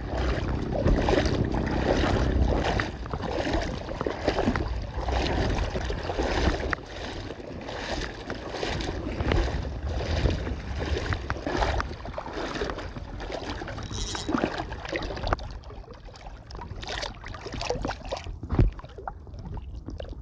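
Someone wading through knee-deep seawater, the water sloshing and splashing with each stride about one and a half times a second, over a low wind rumble on the microphone. The strides thin out after about 15 seconds.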